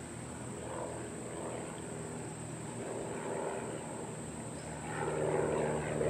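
Piston engine and propeller of a small single-engine airplane taxiing: a steady drone that grows louder about five seconds in.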